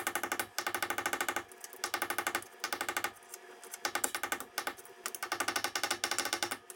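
Air hammer with a shortened chisel bit rattling in several short bursts against steel, driving the roll pin that holds the cross shaft out of an AMC 20 differential carrier.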